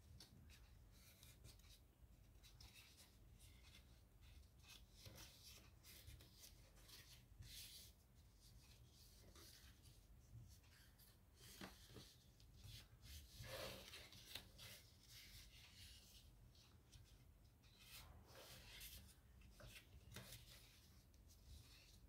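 Faint, irregular rustling and creasing of origami paper being folded and pressed flat by hand on a tabletop, over a low steady hum.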